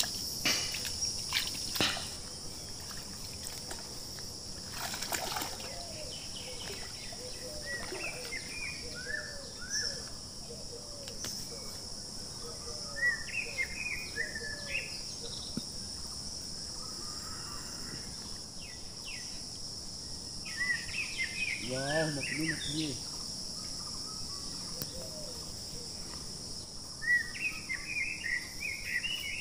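Outdoor riverside sound: a steady high drone of insects with birds chirping in short bursts, and water sloshing as a person wades into a river.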